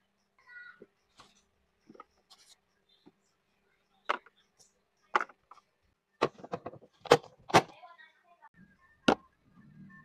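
Hard plastic lunch box clicking and clattering as it is handled and its lid is fitted. A series of sharp clicks, scattered at first, comes thickest and loudest about six to seven and a half seconds in, with one more near the end.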